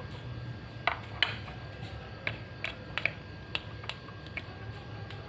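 Light plastic clicks and taps, about ten, spaced irregularly, from a small plastic ball-shaped rice mold being picked up and handled.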